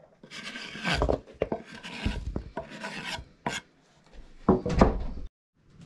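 Irregular rasping, scraping strokes of kitchen food preparation, several in a row with short pauses between them, stopping shortly before the end.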